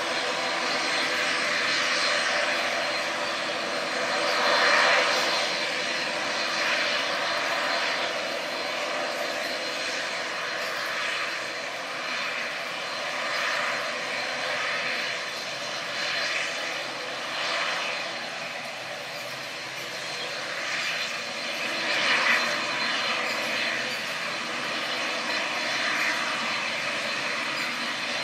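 ATR 72 turboprop's twin Pratt & Whitney PW127 engines running as the airliner taxis. A steady whine sits under a rushing propeller noise that swells and eases every few seconds.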